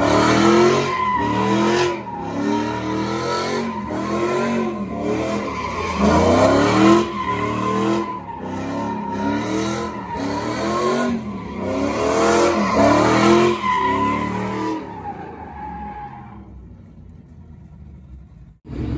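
Pickup truck doing donuts: its engine revs up and drops back in repeated surges every two or three seconds while the spinning rear tyres squeal steadily. The sound fades away over the last few seconds, then cuts off abruptly.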